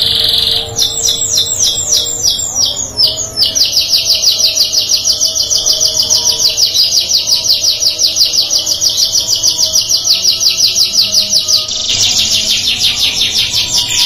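Domestic canary singing. It starts with a brief held high note, moves to a run of falling swept notes, then a long, fast, even trill of about eight notes a second, and switches to a new phrase near the end.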